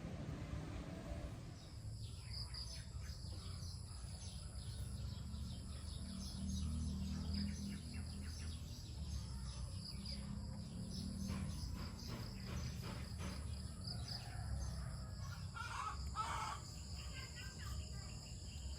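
Insects keep up a steady high-pitched drone that sets in about a second and a half in, over a low rumble. A couple of short bird calls come near the end.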